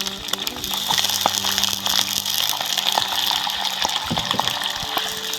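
Shallots, garlic and ginger sizzling steadily in hot oil in a pan, with short clicks and scrapes of a spatula stirring them.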